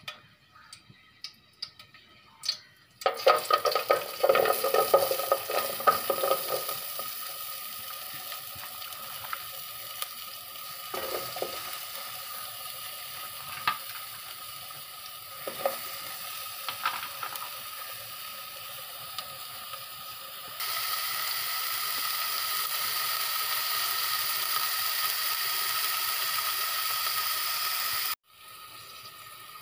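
Sliced onions frying in hot oil in a metal pot. A loud crackling sizzle starts suddenly about three seconds in, as the onions hit the oil, then settles into steady frying with a few clicks. The sizzle steps up louder about two-thirds of the way through and cuts off abruptly near the end.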